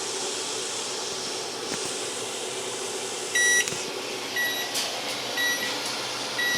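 Oven timer alarm beeping: one longer beep about three seconds in, then short high beeps about once a second, over a steady fan-like hum.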